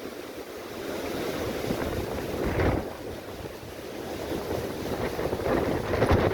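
Strong gusty storm wind buffeting the microphone over heavy surf breaking on the shore. The noise swells about two and a half seconds in and again near the end.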